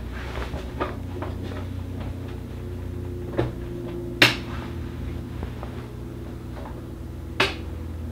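A computer monitor hood being handled and seated onto a monitor: scattered light clicks and knocks of its panels against the screen's frame, the sharpest about four seconds in and another near the end, over a steady low hum.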